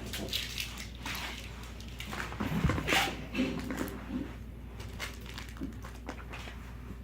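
Crunchy slime being squeezed and worked by hand: an irregular run of small crackles, pops and squelches, loudest about three seconds in.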